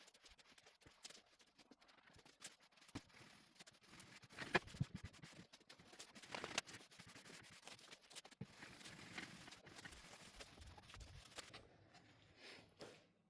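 Scattered light knocks and clicks at an irregular pace, the loudest about four and a half seconds in, stopping just before the end.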